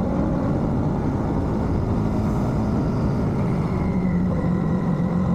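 Royal Enfield Shotgun 650's 648 cc parallel-twin engine running at a steady pace under way, over a dense rush of wind and road noise.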